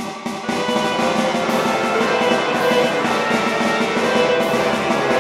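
Marching band music with drums and horns, playing steadily.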